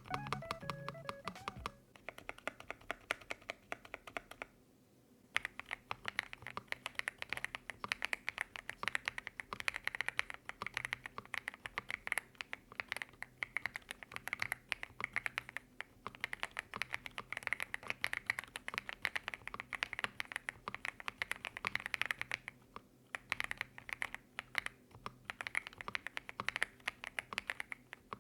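Fast, continuous typing on a Monka A75 aluminium-bodied 75% mechanical keyboard with stock Snow Leopard linear switches: a dense patter of keystroke clicks, with a brief pause about five seconds in. Background music ends about two seconds in, before the typing starts.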